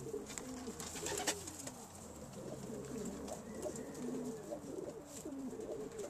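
Racing pigeon cocks cooing, several at once, their low rising and falling coos overlapping throughout. A brief knock sounds a little over a second in.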